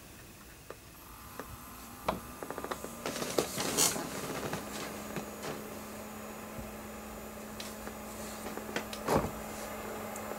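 An old Pentium II PC on the bench powering up. A click about two seconds in and a short clatter, then a steady low hum sets in from about four seconds as the power supply and cooling fans run. There is one more knock near the end.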